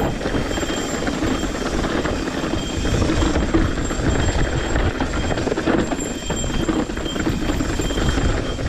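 Mountain bike rolling fast down a dirt and rock trail: a steady rumble and chatter of tyres and frame over the rough ground, mixed with wind buffeting on the microphone.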